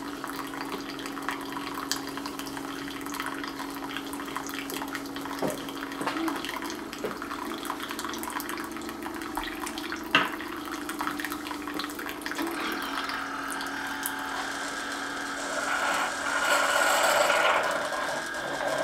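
Keurig K Express single-serve coffeemaker brewing: its water pump hums steadily as coffee streams into the cup. Near the end the hum shifts and a louder rush of noise marks the end of the brew cycle.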